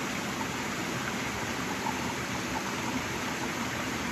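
Steady rushing of a waterfall, an even wash of falling water.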